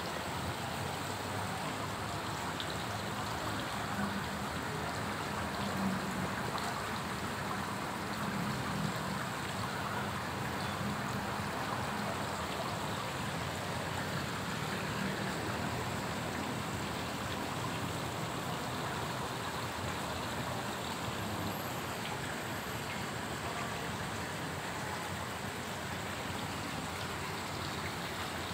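Steady running, splashing water in a tiled koi pond.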